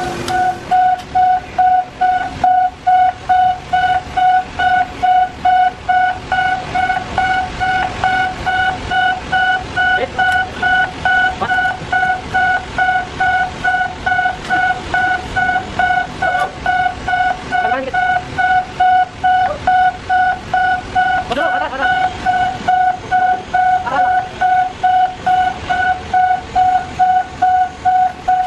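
Electronic warning beeper sounding a single steady pitch over and over, about two beeps a second, like the alarm on a hoist or a reversing vehicle.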